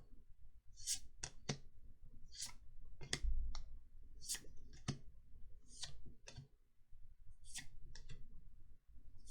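Magic: The Gathering paper trading cards being handled: a run of a dozen or so short, crisp flicks and snaps at an uneven pace as cards are slid off the stack and laid down.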